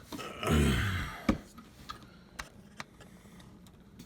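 A short low grunt-like sound falling in pitch, then a single sharp knock just over a second in, amid faint handling clicks.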